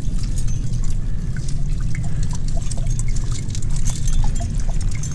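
Meltwater trickling off wet rock and dripping into a stainless steel water bottle, a scatter of small plinking drops, over a steady low rumble.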